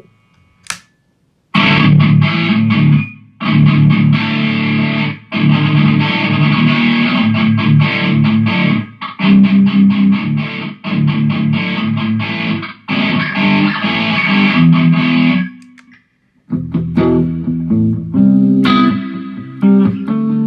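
Electric guitar played through a Mooer GE150 multi-effects pedal with a distorted tone, riffing in phrases broken by short pauses. It starts after a second or so of quiet broken by a single short click.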